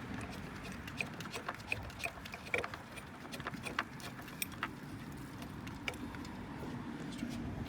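Scattered light metallic clicks and clinks of hand tools and bolts as the loosened engine-mount bolts are worked out by hand, over a steady low background rumble.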